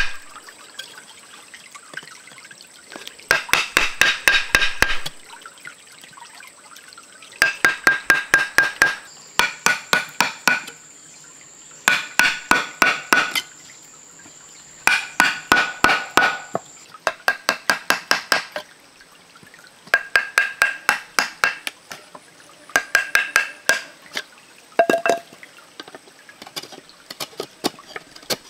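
Knife blade chopping into a green bamboo stalk: quick bursts of five to eight sharp knocks, each strike ringing briefly off the hollow bamboo, with pauses of a second or two between bursts.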